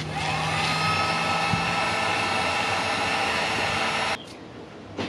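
Electric heat gun switched on, its fan whine rising to speed within the first second, then blowing steadily for about four seconds before cutting off abruptly. A couple of light clicks near the end.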